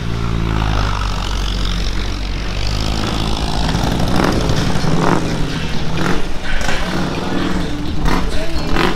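A motor vehicle engine running close by, a low steady rumble that fades after about two and a half seconds, followed by a few short sharp knocks.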